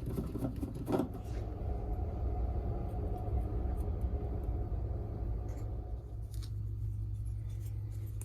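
A steady low rumble, with light clicks and knocks in the first second or so as a replacement hot surface igniter is handled and fitted into the furnace.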